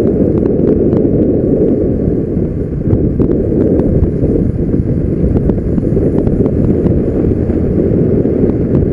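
Wind buffeting the microphone of a moving motorcycle, a steady low rumble with the bike's running noise beneath it.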